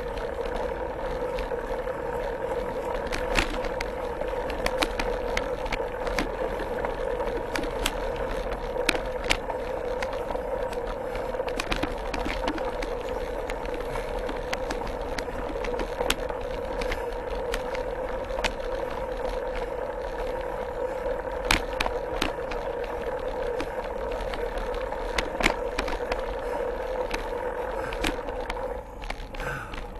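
Mountain bike rolling over a dirt forest trail, heard from a handlebar-mounted camera: a steady hum of tyres and drivetrain with frequent sharp clicks and rattles as the bike jolts over bumps.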